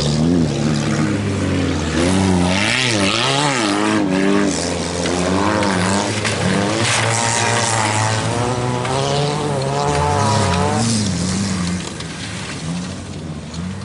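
Engines of several old wreck-race cars revving hard on a dirt track, their pitch rising and falling again and again as they accelerate and back off through the bends, with overlapping engine notes from different cars.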